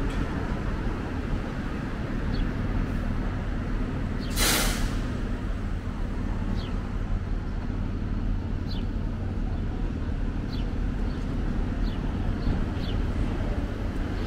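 Street traffic rumbling steadily, with a large vehicle's air brakes letting out one short, loud hiss about four seconds in.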